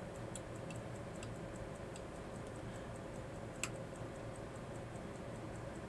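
Faint, even, fast ticking of a running mechanical watch, several ticks a second. About three and a half seconds in there is one sharper click.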